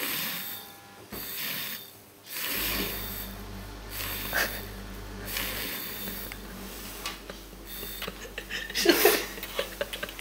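Battery-powered handheld milk frother whirring in a mug, stirring coffee powder into frothed milk and hot water, running in spurts with a short break around two seconds in.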